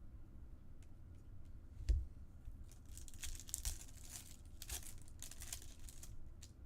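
Foil trading-card pack wrappers being torn open and crinkled, in several short rustling bursts, with one dull knock about two seconds in.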